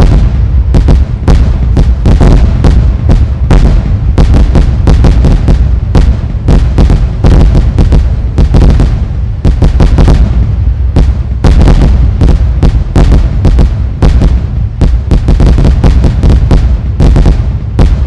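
Fireworks going off in rapid, continuous bangs, several a second, over a heavy low rumble that clips the recording.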